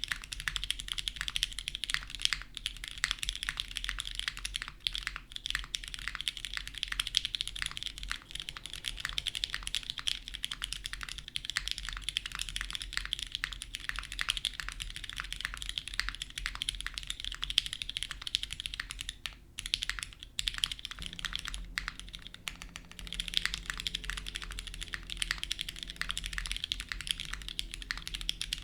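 Continuous typing on a TGR x Singa Unikorn R2.2 mechanical keyboard with lubed Cherry MX Hyperglide Black linear switches on an FR4 plate and GMK keycaps: a dense, steady stream of keystroke clacks, broken by two short pauses about two-thirds of the way through.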